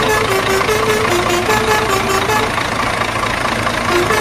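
A truck engine sound running steadily with quick even pulses, with a simple tune of short stepping notes playing over it.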